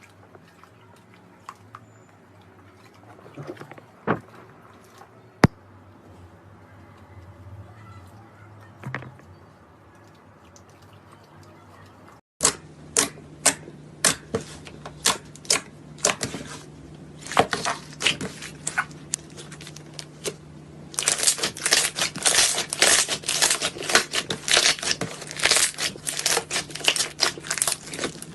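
Slime being squeezed and pressed, giving off crisp crackling and popping clicks, scattered at first and then dense and rapid in the last third. The first part is quieter, with only a few isolated clicks and knocks.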